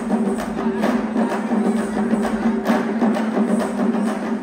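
Parai, Tamil frame drums, beaten with sticks by several players in a rapid, steady rhythm, the drumheads ringing under each stroke.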